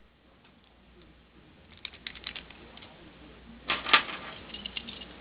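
Light metallic clicks and taps of a padlock and lock-picking tools being handled. A louder cluster of clicks comes near four seconds in.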